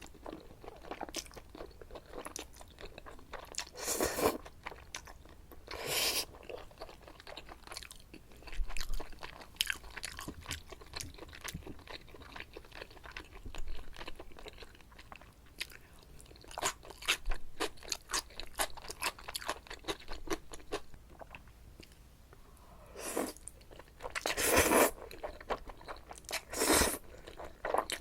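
Close-miked mouth sounds of someone eating jajangmyeon with squid and shrimp: chewing with many small wet clicks, broken by a few louder bursts several seconds apart.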